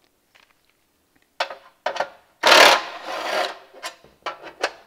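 Cordless drill-driver running in short bursts and then one longer, louder run, backing bolts out of a steel oil pan, with sharp metal clicks near the end.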